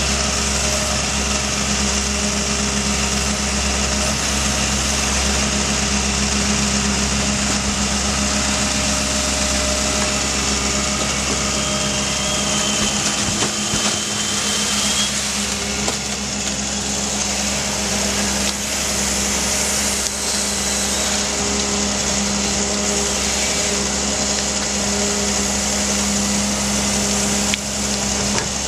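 Diesel engine of a Doosan amphibious excavator running steadily, its pitch held even throughout.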